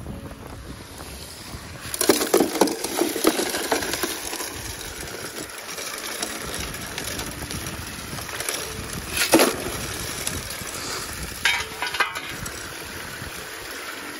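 Shovel digging into gravel and rocks clattering as material is fed into a gold highbanker, in a cluster of impacts about two seconds in, another around nine seconds and two more near the end. Underneath is the steady rush of water running through the highbanker from two 12-volt bilge pumps, a weak flow that the operator says is not enough water.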